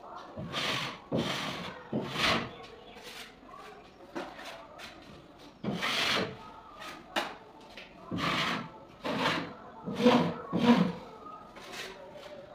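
Hand-held finishing tool worked against a gypsum false-ceiling edge in about a dozen short strokes at uneven intervals, the surface being smoothed for finishing.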